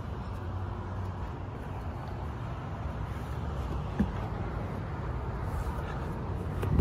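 Steady low outdoor background rumble, with a single sharp click about four seconds in.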